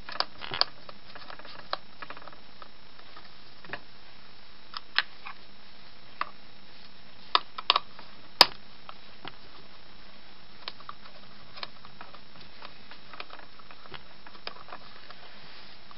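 Scattered small metal clicks and taps of a hand tool against a steel mortise lock case, irregular and spaced out, with the sharpest click about eight seconds in.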